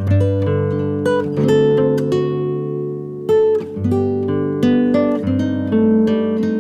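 Background music: acoustic guitar, plucked and strummed chords ringing out.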